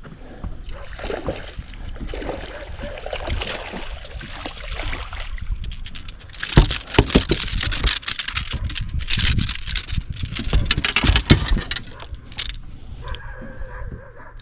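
Noise of a fishing boat out on the water: wind and water washing, with many sharp knocks and rattles that grow louder about halfway through. Near the end a steady whine sets in.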